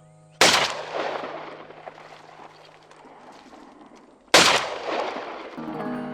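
Two gunshots about four seconds apart, each a sharp crack followed by a long rolling echo that dies away.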